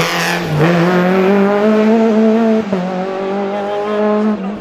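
Renault Clio rally car's four-cylinder engine revving hard under acceleration. The pitch climbs, drops at an upshift about two and a half seconds in, then climbs again.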